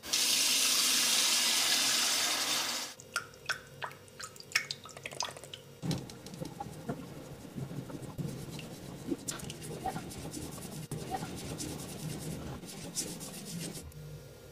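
Tap water running hard for about three seconds and then shut off, followed by wet squelching, clicking and rubbing as makeup tools are lathered and squeezed.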